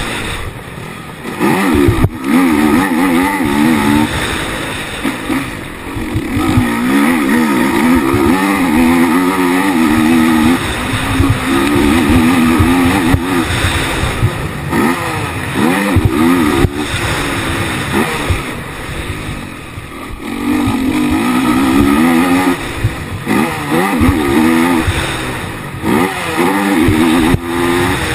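Onboard sound of a Honda racing quad's engine under hard throttle, its pitch climbing and falling repeatedly as the rider accelerates and shifts. The revs drop off briefly about a second in and again around twenty seconds in.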